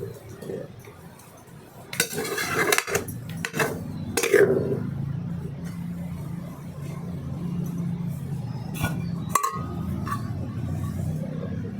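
Metal kitchenware clinking and scraping a few times, with a couple of sharp clicks later, over a steady low hum.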